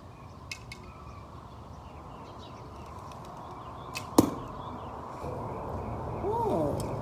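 A recurve bow shot about four seconds in: two sharp cracks a fraction of a second apart as the bowstring is loosed and the arrow flies. The second crack is the loudest, with a brief ringing after it.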